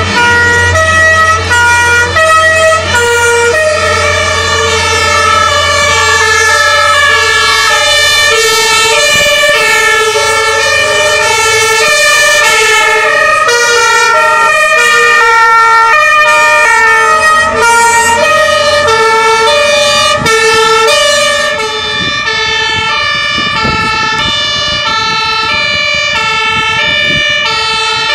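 Several two-tone fire engine sirens sounding at once, each stepping between its two pitches out of step with the others, as a convoy of fire trucks drives past. A low truck-engine rumble fades after about ten seconds. About three quarters of the way through, the sound changes abruptly and the sirens carry on a little quieter.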